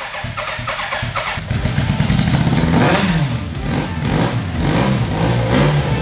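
1986 Kawasaki GPZ1000R's inline-four engine cranking on the electric starter, then catching about a second and a half in and running, revved up and down.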